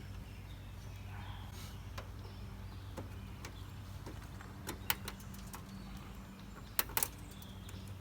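Sharp clicks and knocks of plastic trim clips being worked loose on a truck's front bumper: two about halfway through and a quick cluster of three about two seconds later, over a steady low hum.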